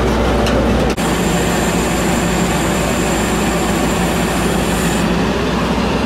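Truck engine running steadily with a low hum, a thin high whine joining about a second in and stopping about five seconds in.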